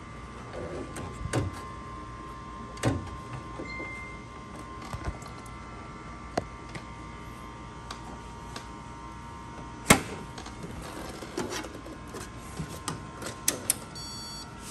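Scattered sharp plastic clicks and knocks from hands working the printhead latch and covers of an HP DesignJet T120 printer, the sharpest about ten seconds in and a quick cluster near the end. A faint steady whine runs underneath.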